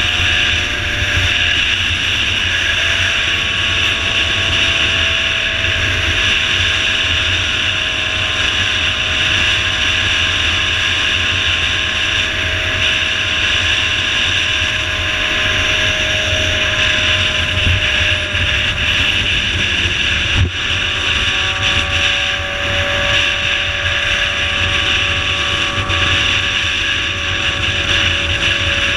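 Motorcycle engine running at a steady highway cruising speed, its note drifting only slightly, mixed with heavy wind rush on the mic. A single short knock about twenty seconds in.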